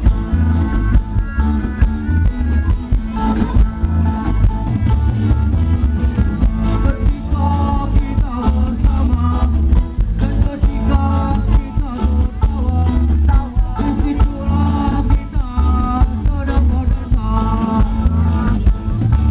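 Loud music with heavy, pulsing bass and a steady beat, and a melody line above it.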